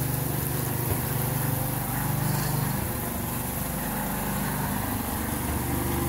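A small engine or motor running steadily with a low, even hum.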